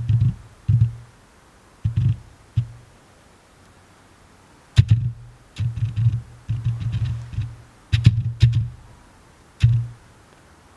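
Background music: short, bass-heavy beats on one low note, in uneven groups with gaps between them.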